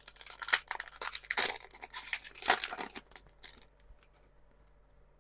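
Foil wrapper of a Pokémon trading card booster pack being torn open and crinkled by hand: a run of crackling tears that stops a little over halfway through.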